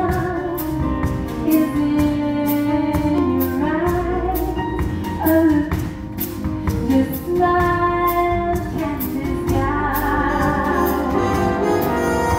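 A woman singing with a live big band behind her, the drums keeping a steady beat on the cymbals.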